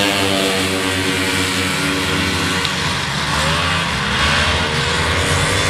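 A pack of vintage two-stroke racing snowmobiles at full throttle, passing close by and pulling away. Several engines run at once at different pitches, and their notes bend and slide as they go by.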